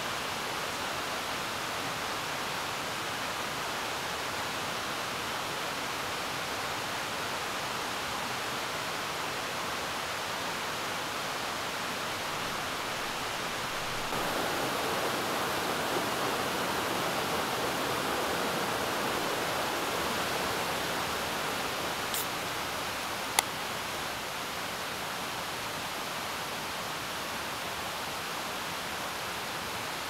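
Steady rushing of a mountain headwater stream, growing a little louder about halfway through and easing back later. A single sharp click sounds about two-thirds of the way in.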